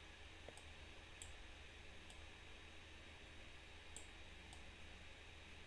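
Near silence: quiet room tone with a few faint computer mouse clicks.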